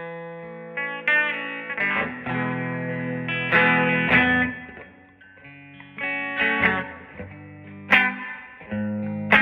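Electric guitar chords strummed and left to ring, about a dozen in turn, played through a Bugera V22 tube amp and a 1960 Rola Alnico 5 12-inch speaker.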